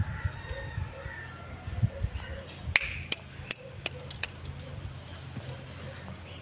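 A quick run of about six sharp clicks near the middle, over a steady low outdoor hum.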